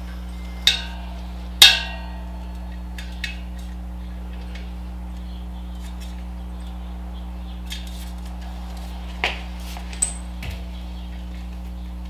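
Scattered sharp metallic clanks and taps of tire irons against a dirt bike wheel rim as the tire is worked back on, the loudest one about a second and a half in. A steady low hum runs underneath.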